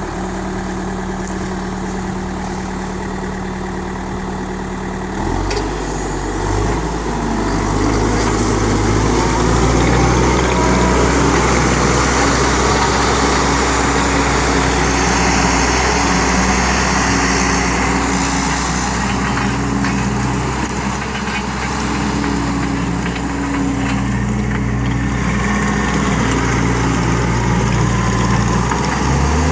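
New Holland C190 tracked skid steer loader's diesel engine running. About five seconds in its note shifts lower and it grows louder over the next few seconds, then runs on with its pitch wavering slightly.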